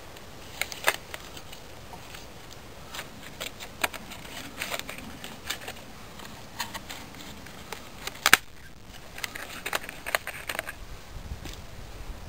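Birch bark being peeled and torn off a log by hand: irregular crackling and snapping, with one sharper snap about eight seconds in.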